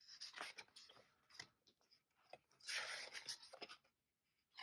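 Faint paper rustling as sticker book pages are turned and handled, with a longer rustle about three seconds in and a few light ticks.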